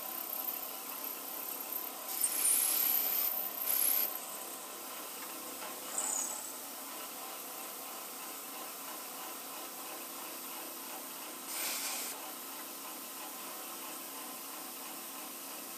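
Milling machine running steadily with an end mill cutting into a metal block. Three short louder scraping bursts of the cut come about two to four seconds in, near six seconds, and again near twelve seconds.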